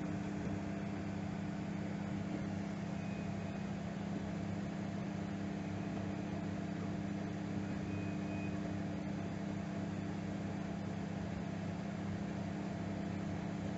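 Microwave oven running as it heats a glass of water: a steady mains hum with an even fan hiss.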